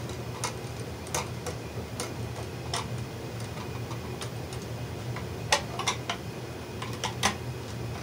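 A red plastic wire nut being twisted by hand onto four 14-gauge wires, giving irregular clicks and scrapes as it bites and tightens.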